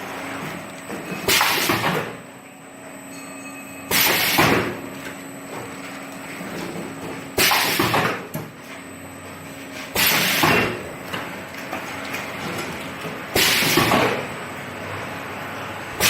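Four-lane automatic cup filling and sealing machine cycling. A sudden hissing burst comes about every three seconds, once per sealing stroke, over a steady machine hum.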